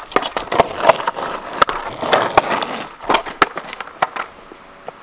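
Skateboard wheels rolling over rough, cracked asphalt, with a rumble full of clicks and clacks as they cross cracks. About three seconds in, a few sharp knocks come as the rider comes off the board and it stops, and then the sound dies down.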